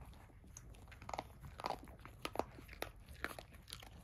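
An adult Cavalier King Charles Spaniel crunching dry kibble: a scatter of short, irregular crunches.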